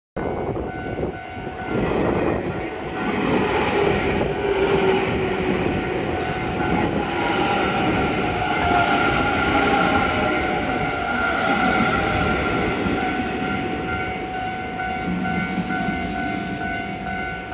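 Hanshin 1000 series electric train running through a level crossing, its wheels rumbling on the rails and its motor whine falling in pitch, while the crossing bell rings steadily. Two short hisses come near the end.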